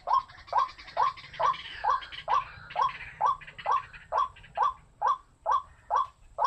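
White-breasted waterhen (burung wak-wak) calling a long run of repeated 'wak' notes, about two a second, each dropping a little in pitch. Softer chattering calls run underneath through the first half.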